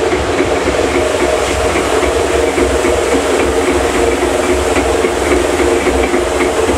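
Rotating coating-pan drum of an elaichi dana (sugar-coated cardamom candy) machine running steadily: a motor hum under the rattle of the sugar-coated granules tumbling in the spinning drum.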